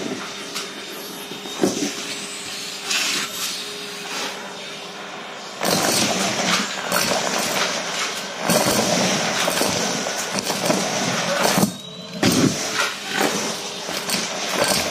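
Vacuum cleaner running with a faint whine, its metal wand sucking at a pile of paper craft scraps and sequins. The suction noise jumps louder about six seconds in, and from then on small pieces rattle and click up the metal tube, with a brief drop in the noise near the end.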